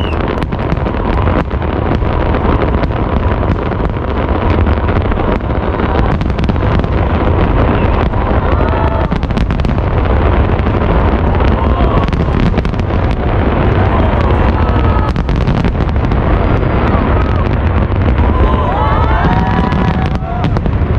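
Fireworks display: many aerial shells bursting in quick succession, a continuous run of bangs, with the voices of a large crowd watching underneath.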